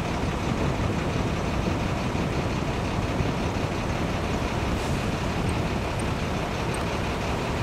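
Twin-engine jet airliner climbing away overhead: a steady rush of turbofan engine noise.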